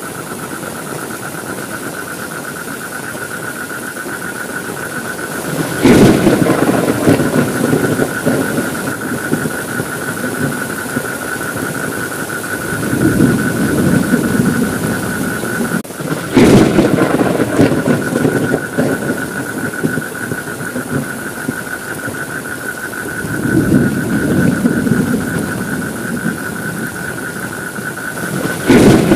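Heavy rain falling steadily, with three sudden thunderclaps about ten seconds apart, each trailing off into rolling thunder. Two softer rumbles fall between them.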